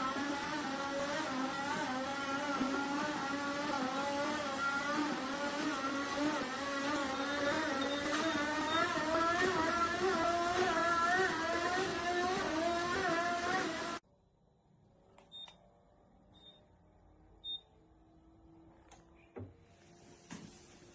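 Walking-pad treadmill's motor running with a steady whine whose pitch wavers in a regular rhythm and creeps slightly upward. It cuts off abruptly about two-thirds of the way through, leaving faint clicks and a few short high beeps.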